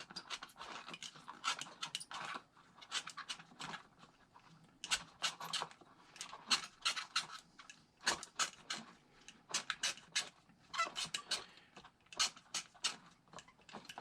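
Razor blade sawing through the rubber of an RC tire down near the wheel's bead, a run of quick rasping strokes in clusters with short pauses between them.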